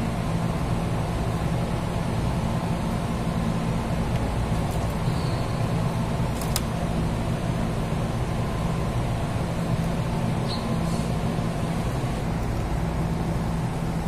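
Steady hum of running machinery, even and unchanging, with a faint click about six and a half seconds in.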